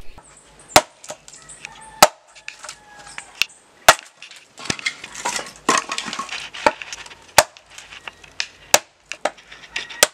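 Machete chopping into the end of an upright dry log to split it: a series of sharp, irregular chops about a second apart, with scraping and splintering wood between strikes.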